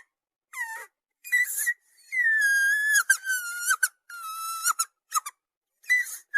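A series of high-pitched whining cries: short squeals, some sliding down in pitch, and a longer held cry about two seconds in, with brief gaps of silence between them.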